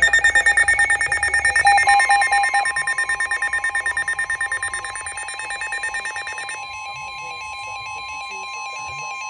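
Several weather alert radios sound rapid pulsing alarm beeps. About two seconds in, the steady single-pitch NOAA Weather Radio warning alarm tone joins them, signalling an incoming warning. The higher beeping stops about two-thirds of the way through while the steady tone keeps sounding.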